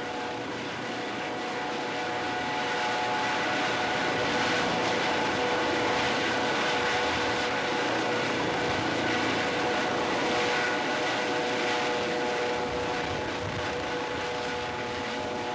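Eurocopter EC155 helicopter running on the ground, turbines and rotor turning, ready for take-off: a steady turbine whine of several held tones over rotor and exhaust noise, growing a little louder a few seconds in.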